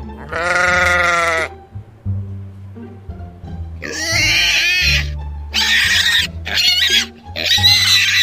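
A single bleat lasting about a second, followed from about halfway on by a run of shrill, wavering squeals typical of pigs, over background music with a steady low beat.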